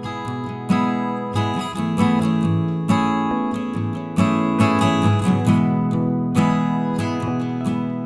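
Background music: acoustic guitar strummed and picked in a steady run of chords.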